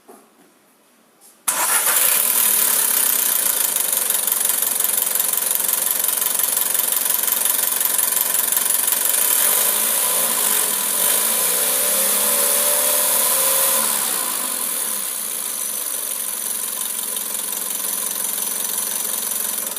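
Volkswagen Golf 6 TSI petrol engine starting suddenly about a second and a half in and running steadily, settling a little quieter about fourteen seconds in.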